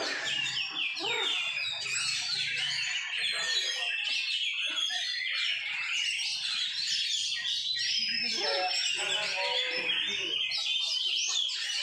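Oriental magpie-robin (kacer) singing a continuous, rapid, varied song of high chirps, trills and whistles without pause.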